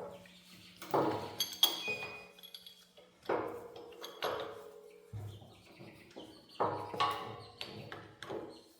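Metal parts and tools clinking and knocking together: about seven separate strikes, each with a short metallic ring. A faint steady hum cuts off about halfway through.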